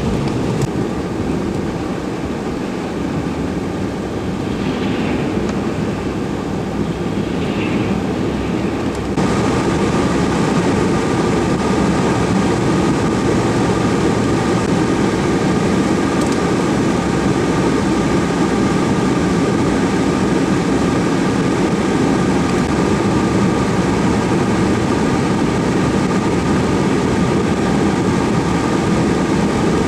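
Steady, loud running of a heavy engine with a wash of mechanical noise; about nine seconds in it jumps louder and brighter and then holds steady.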